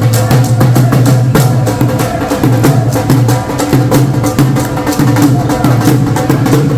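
Music with busy, rapid percussion clicking over a steady low bass line.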